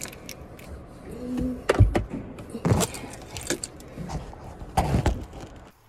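Things being handled inside a car cabin: a few knocks and rustles, the loudest about two seconds in.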